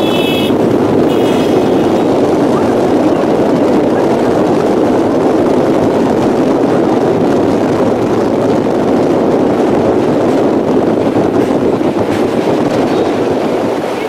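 Rameswaram Express passenger train running steadily at a very slow crawl across the Pamban bridge, heard as a loud, even rumble mixed with wind.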